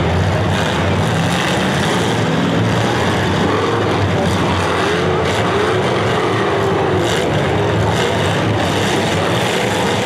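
Several demolition derby cars' engines running and revving together in a loud, continuous din. The engine pitch rises and falls a few times around the middle.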